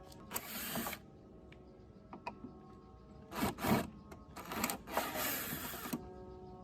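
Mechanical work noises: several short bursts of scraping or rubbing, about a second long or less, with scattered small clicks over faint steady tones.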